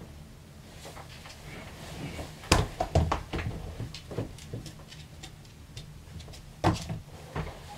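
A person shifting and settling onto a bed, with rustling of the comforter and a few soft knocks and thumps, loudest in a cluster about two and a half to three and a half seconds in, and one more thump near the end.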